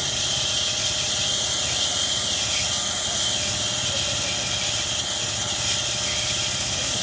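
Wood-sawing machine running steadily, with an even mechanical whine and no change in pitch or load.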